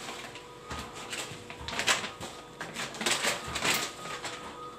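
Payasam boiling vigorously in an aluminium pot, bubbling with irregular pops and sputters, several in quick succession around the middle. A faint steady hum runs underneath.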